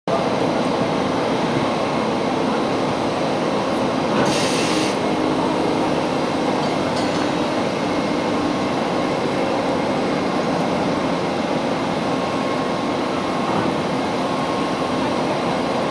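Steady mechanical rumble and hum of a container ship being towed into a canal lock by electric towing locomotives on rails, with a brief hiss about four seconds in.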